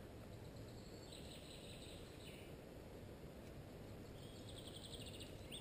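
Faint birdsong in quiet woodland: two short trilling phrases, one about a second in and another near the end, over a low steady background hush.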